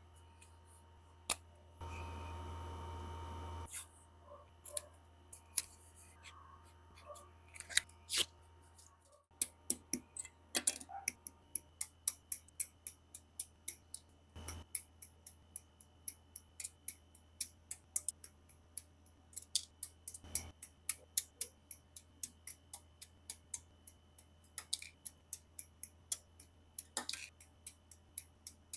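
Plastic model-kit parts being snipped from the sprue with hobby nippers: sharp plastic clicks, scattered at first, then a steady run of about two to three cuts a second from about ten seconds in. A short rustle comes about two seconds in.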